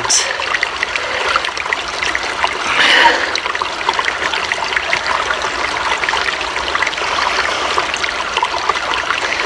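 Small stream running steadily, with a brief louder swell about three seconds in.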